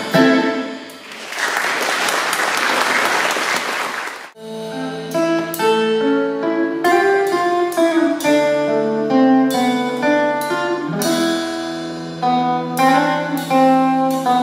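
A live klezmer band of clarinet, guitar and bass guitar plays its last notes. An audience then applauds for about three seconds, and a little over four seconds in, instrumental music with guitar and a steady bass line starts and carries on.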